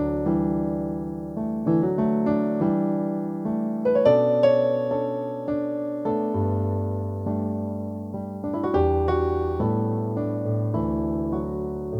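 Yamaha NP-11 Piaggero digital keyboard played with a piano-type voice: chords and a melody over held bass notes, with new notes struck about every second.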